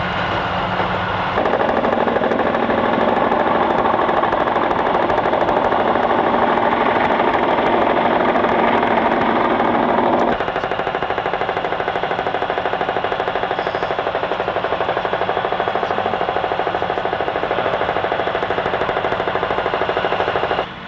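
Helicopter rotor beating in a rapid, steady pulse, louder from about a second in until about halfway, then somewhat quieter.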